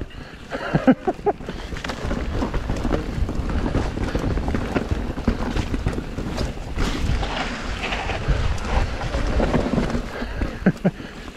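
Wind buffeting the microphone as a mountain bike rides fast down a rough dirt trail, with steady rumble and frequent knocks and clatter from the bike over rocks and roots.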